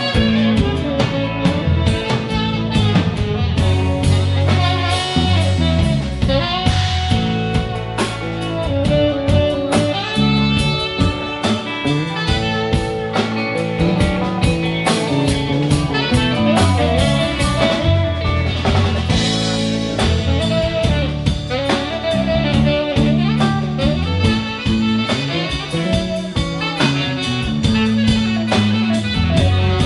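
Live band playing an instrumental passage: electric guitars over bass guitar and a drum kit, in a bluesy rock style.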